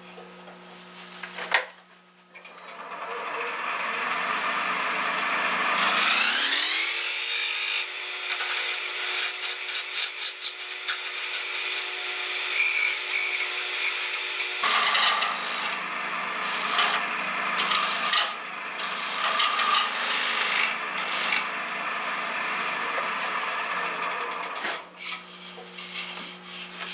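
A turning gouge cutting the inside of a spinning yellow birch bowl on a wood lathe, a continuous scraping hiss of shavings over the lathe's hum. The hum rises in pitch about six seconds in and drops back lower around fourteen seconds. The cutting eases off near the end.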